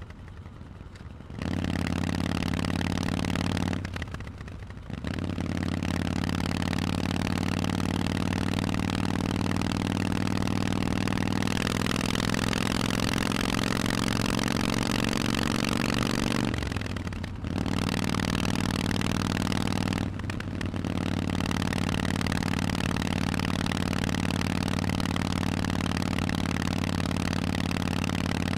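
Harley-Davidson Forty-Eight's 1200 cc V-twin running through a Vance & Hines aftermarket exhaust while riding. It pulls under throttle and climbs slowly in pitch through the middle. The sound drops away briefly four times, near the start, about four seconds in, around seventeen seconds and around twenty seconds, as the throttle is closed and reopened.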